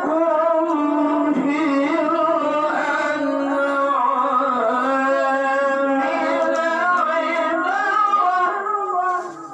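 A qari's high male voice reciting the Quran in the melodic, drawn-out tilawah style. It holds long ornamented notes with few breaks and tails off near the end.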